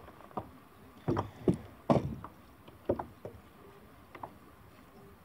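A string of irregular knocks and thumps on a plastic sit-on-top kayak as a caught squid is handled with rod and jig in hand, the loudest about one to two seconds in.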